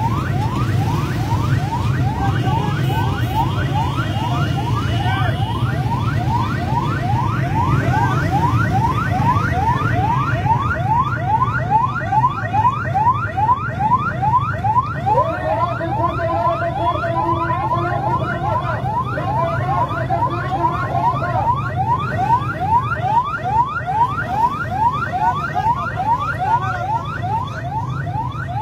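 Ambulance siren in a fast yelp, about three rising sweeps a second, over the noise of a dense crowd.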